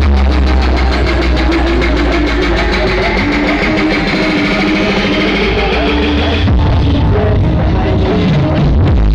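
Loud music played through a large sound-horeg sound system, with very heavy bass. A rising sweep builds over the first six seconds, then at about six and a half seconds the bass changes to a choppier pulsing pattern.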